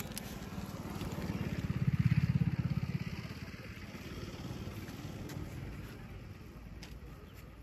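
A small engine passing by, its low pulsing note swelling to a peak about two seconds in and then fading away.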